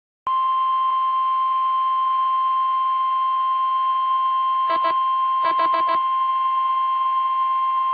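NOAA Weather Radio 1050 Hz warning alarm tone played through a weather radio's speaker: one loud, steady, piercing tone that starts abruptly and cuts off. It signals that an alert broadcast, here a severe thunderstorm watch, is about to follow. Two brief clusters of rapid blips break in over the tone a little past the middle.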